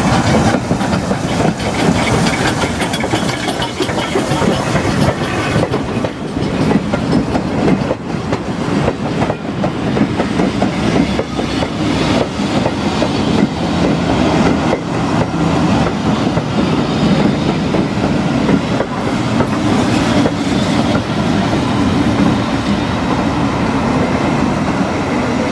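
Steam-hauled passenger train passing close by: S&DJR 7F 2-8-0 locomotive No. 88 goes past first, then its coaches' wheels clatter and click steadily over the rail joints in a loud, continuous run.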